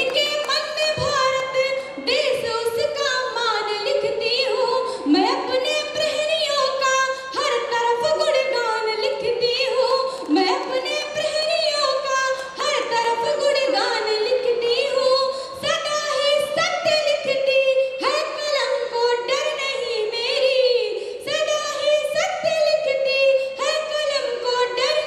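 A woman singing solo into a microphone, unaccompanied, in long held, wavering melodic phrases.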